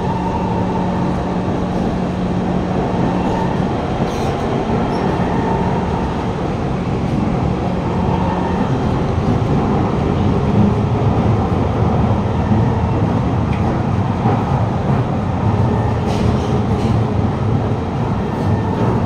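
A Kawasaki Heavy Industries C151 metro train (GTO-VVVF variant), heard from inside the carriage while it runs underground: a steady rumble and hiss of wheels and running gear. A low steady hum stops about nine seconds in, and the rumble grows a little louder after it.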